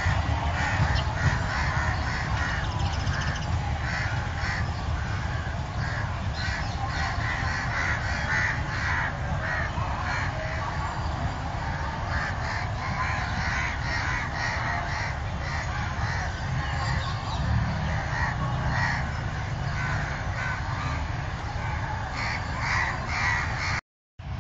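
Crows cawing again and again in short, irregular calls over a steady low rumble of ambient noise.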